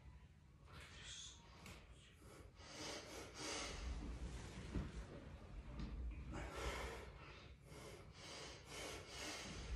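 A man breathing hard through a set of barbell squats: a run of short, forceful breaths in and out, getting louder and closer together from about a quarter of the way in.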